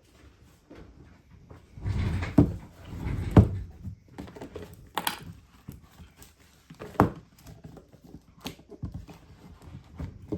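Handling noise: a rustle about two seconds in, then a few separate sharp clicks and knocks as small objects are picked up and set down on a work surface.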